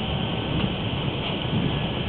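Steady running noise of a moving train, heard from inside the passenger car: an even low rumble with a hiss above it.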